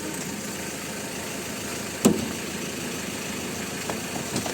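2014 Ford Ranger engine idling steadily, running now that its faulty camshaft position sensor has been replaced. A single sharp knock about two seconds in.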